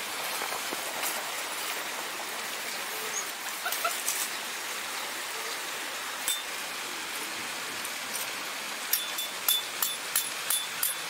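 Steady rush of a rocky valley stream with a few scattered clicks. Near the end comes a quick run of about eight sharp metallic strikes that ring briefly: a tent peg being hammered into the gravel ground.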